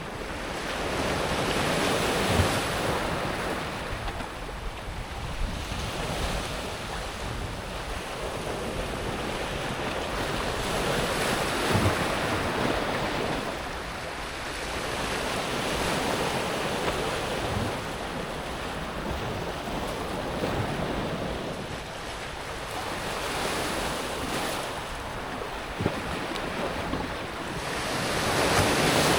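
Small sea waves breaking and washing over a pebble beach, swelling and easing every few seconds, with the water rattling the stones and an odd sharp click of pebble on pebble.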